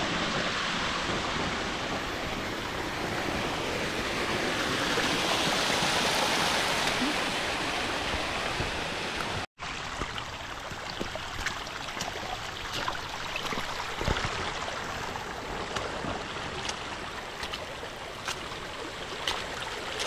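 Steady rush of flowing water from a monsoon-fed jungle stream. It is louder for the first half, breaks off abruptly about halfway, and continues quieter with scattered faint ticks.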